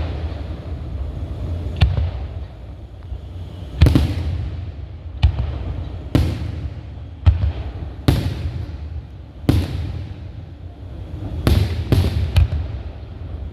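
Aerial firework shells bursting close by: about ten sharp bangs at irregular one- to two-second intervals, each trailing into a low rumbling echo, with three bursts in quick succession near the end.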